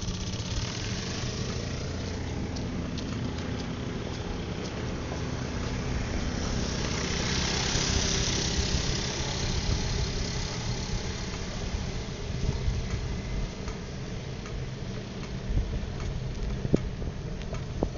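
A motor vehicle engine running steadily, with a louder rush of noise that builds and fades around the middle.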